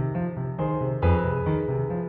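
Background music: piano or keyboard playing a pattern of repeated notes, with a stronger chord about a second in.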